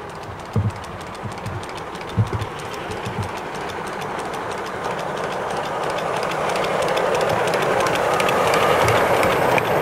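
Miniature 7¼-inch gauge steam locomotive and its train of small wagons passing close by. The wheels click rapidly over the rail joints, with a few heavier knocks in the first three seconds. The running rumble grows steadily louder as the wagons go past.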